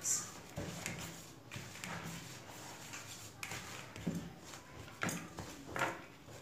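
A hand mixing dry flour in a bowl: uneven rustling and scraping strokes, with a few louder ones.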